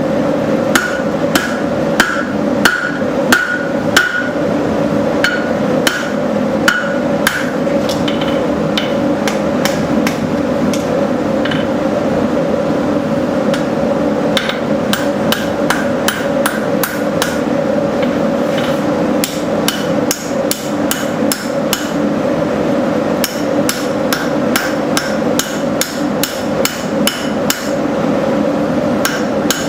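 Hand hammer blows on hot steel over an anvil during knife forging. The blows come in irregular runs, faster in the second half, and some in the first few seconds ring briefly. A steady hum runs underneath.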